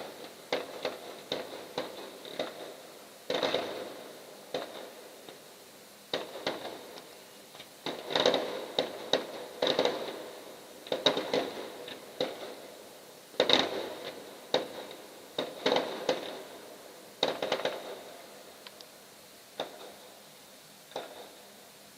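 Fireworks display: dozens of aerial shells bursting with sharp bangs, coming irregularly, often several in quick succession, each followed by a short echo.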